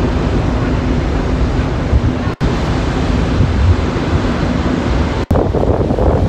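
Wind buffeting the microphone in a steady low rumble over a faint, steady hum. The sound drops out briefly twice, at edits between shots.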